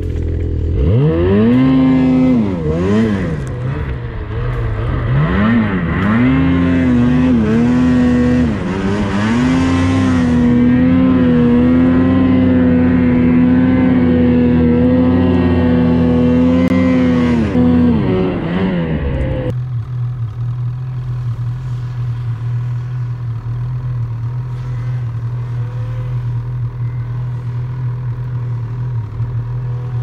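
Snowmobile engine revving up about a second in and rising and falling for several seconds, then held at steady high revs for about ten seconds as the sled works back up through deep snow. It drops back around eighteen seconds in and settles to a steady idle.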